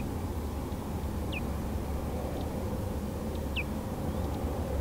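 A bird giving short, falling whistled notes, three times, over a steady low rumble.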